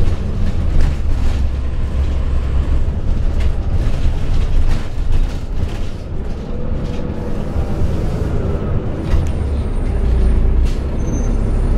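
Cummins ISM inline-six diesel of a 2000 Neoplan AN460A articulated bus running under way through its Allison B500R automatic transmission: a deep, steady engine drone with many small clicks and rattles, and a faint whine that rises and falls around the middle.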